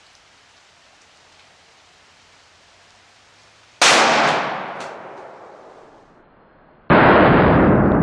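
Glock 20SF 10mm pistol shot: one sharp, loud report about four seconds in that rings out and dies away over about two seconds, with a couple of small knocks as it fades. Near the end a second, duller boom with no high end starts suddenly and fades slowly.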